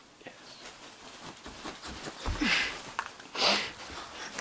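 Faint rustling and handling noise, with two short breathy sounds, like a sniff or snort, about two and a half and three and a half seconds in.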